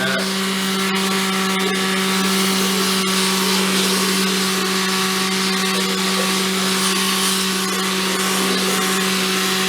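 An electric power tool motor running steadily, a constant hum over a broad hiss, while rims are being sanded.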